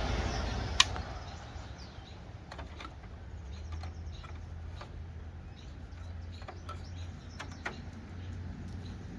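Faint bird chirps and scattered light clicks over a low steady hum, with one sharp click just before a second in.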